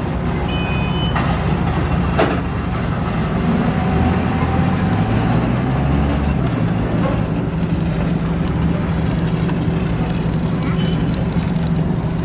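Heavy diesel engine of railway track-laying machinery running steadily, its note rising and falling for a few seconds in the middle. A brief high-pitched tone sounds near the start.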